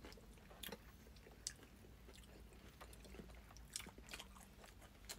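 Faint eating sounds: soft chewing of boiled pork wrapped in kimchi, with a few small clicks and smacks spread through an otherwise near-silent room.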